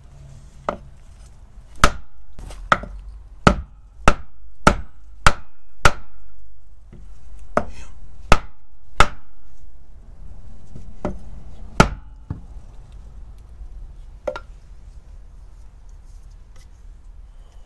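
Claw hammer striking a wooden board held against a new boat-trailer wheel hub, seating the hub on the axle: sharp knocks, a quick run of about eight at less than a second apart, then a few more spaced out, the last a little after the middle.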